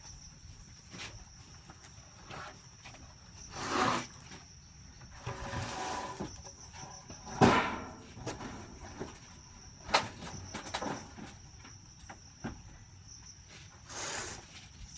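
A steady high insect drone runs through, with a handful of scattered knocks and scrapes; the loudest is a sharp knock about seven seconds in.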